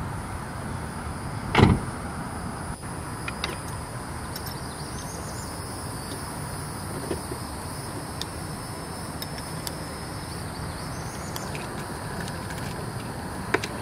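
Car door of a 2004 Infiniti G35 coupe pulled shut with a single thump about a second and a half in, then scattered light clicks from racing-harness buckles and keys over a steady background hiss.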